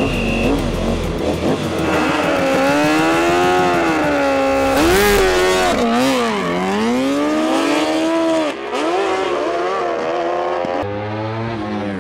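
Kawasaki H2-engined sprint motorcycle revving high at the start line, then launching and accelerating away. Its engine pitch climbs and falls repeatedly, with sharp swoops in the middle.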